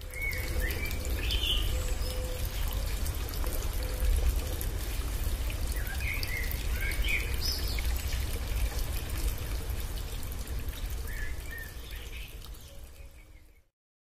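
Waterfall pouring steadily, with birds chirping a few times over it. The sound fades out near the end.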